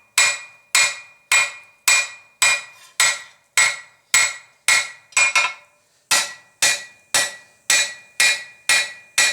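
Blacksmith's hammer striking hot flat-bar steel on an anvil in a steady rhythm, a little under two blows a second, each blow ringing. One quick double blow comes just past the middle, followed by a short pause. This is the bar being drawn out and widened for a latch handle.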